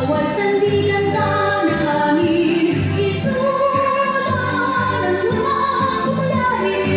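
Music with singing: voices carrying a slow melody in long held notes that rise and fall.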